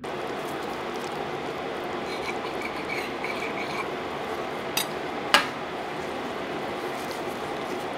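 Steady hiss of background noise, with two sharp clicks about five seconds in, the second louder, from gloved hands handling a bun-topped burger on a board.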